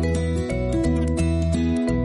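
Instrumental background music: a melody of plucked notes over a bass line that changes every half second or so.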